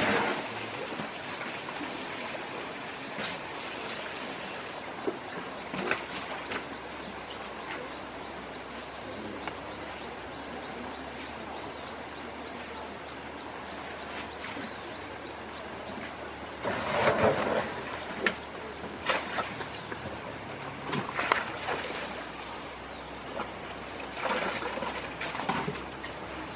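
Asian elephant breaking up an earth bank with its trunk, soil and clods falling in several short bursts, most in the second half, over a steady background hiss.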